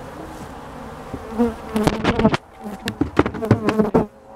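Honey bees buzzing around an open hive, at first as a steady background hum; from about a second and a half in, bees fly right up to the microphone, giving loud, erratic buzzes broken by sharp knocks, which stop abruptly near the end.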